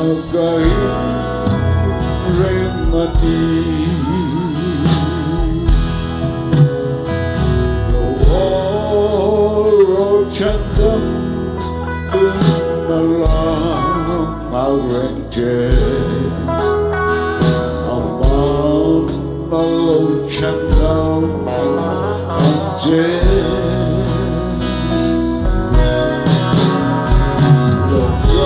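Live gospel worship music: a man singing into a microphone over a band with guitar and drums, played loud through a PA.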